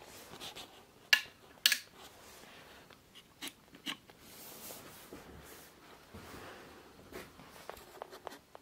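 Sharp clicks and knocks of hands handling things: two loud ones a little over a second in, then two lighter clicks about three and a half seconds in as a wall light switch is tried, with faint rustling between.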